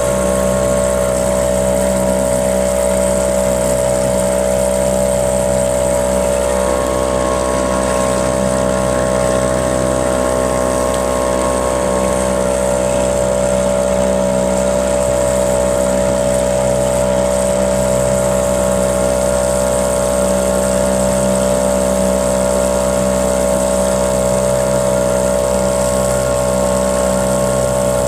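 Small boat motor running steadily at one constant speed, with no change in pitch.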